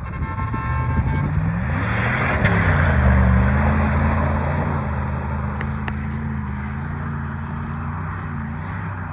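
Dodge Durango engine revving up and then pulling steadily under load while the truck is driven off-road. A faint high whine is heard briefly at the start.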